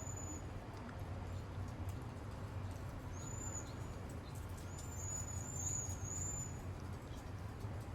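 Wind gusting through a cypress tree's foliage, a steady swishing rush that swells slightly near the end. Several short, high, thin chirps sound about three seconds in and again between five and six and a half seconds.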